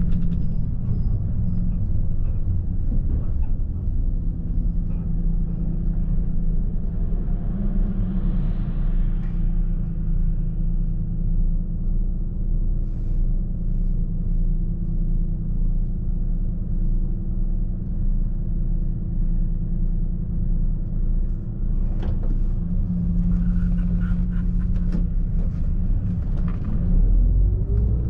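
Inside a 2005 Volvo B12B coach: its 12-litre six-cylinder turbo diesel is running as a steady low drone while the coach creeps along in town. A few light clicks and rattles come near the end.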